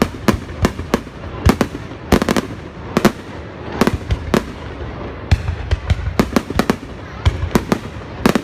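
Fireworks going off: an irregular, rapid run of sharp bangs, one or two a second, over a steady rumble of more distant bursts.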